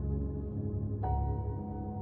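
Soft ambient background music: a low sustained drone, with a single note struck about a second in that rings on.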